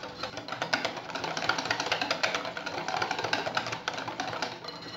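Pancake batter being mixed by hand in a bowl: rapid, even clicking of the mixing utensil against the bowl, about eight strokes a second, as the flour is worked into the egg, milk and butter.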